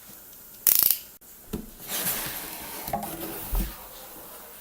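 A laptop's cardboard box and its packing being opened and handled: a sharp, loud rattle just under a second in, then rustling, with a low thump about three and a half seconds in.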